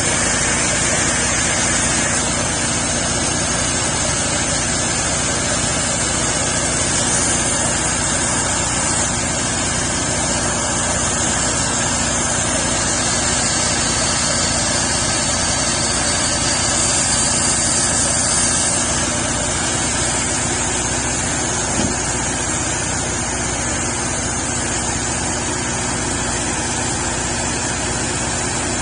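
Homemade sawmill running steadily, its engine humming under the hiss of the blade cutting through a maple log, with the cut swelling louder a couple of times.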